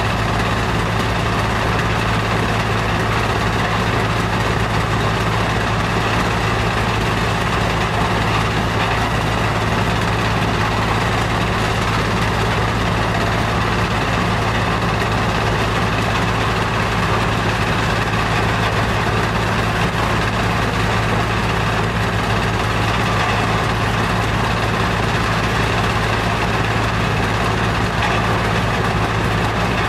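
Heavy stone-crusher plant machinery running steadily: a loud, unbroken low hum with a constant drone and no separate knocks or changes in pace.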